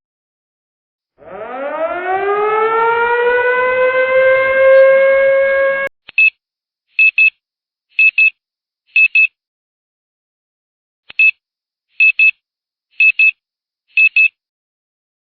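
A siren sound effect winds up, rising in pitch and levelling off, then cuts off abruptly. It is followed by short, high electronic double beeps about once a second, in two groups of four with a pause between them.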